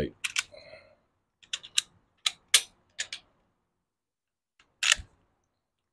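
Sharp metallic clicks and clacks of a Glock pistol being cleared and handled for disassembly, in small quick groups, ending about five seconds in with a single heavier knock.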